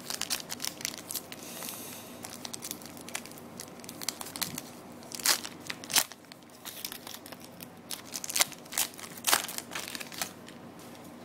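A trading-card pack wrapper being torn open and crinkled by hand, a steady run of crackles with a few louder sharp crackles about five seconds in and again near the end.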